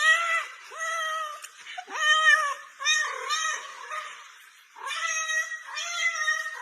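Cat meowing over and over: a quick run of short calls, each rising and then falling in pitch, with a brief lull a little after the middle.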